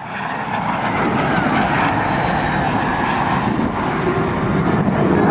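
Engine noise of an F-22 Raptor jet fighter and a P-38 Lightning twin-engine propeller fighter flying past together in formation. The noise is dense and steady, building over about the first second and then holding level.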